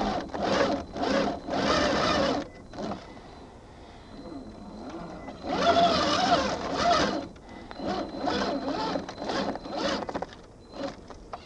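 Electric motor and gear drivetrain of an RC4WD Trail Finder 2 1/10-scale crawler whining in bursts as it crawls up loose, rocky dirt, the pitch wavering with the throttle. There are three main bursts, with quieter gaps between them.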